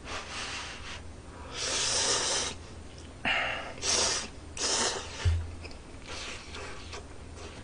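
Hot ramen noodles slurped from a bowl of budae-jjigae: four sucking slurps, the longest about one and a half seconds in and three shorter ones close together after it.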